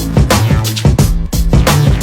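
Electronic dance music with a heavy bass line and a hard, fast beat.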